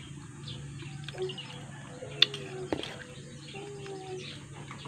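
Birds chirping and calling, with a few short low calls and a sharp click about two seconds in.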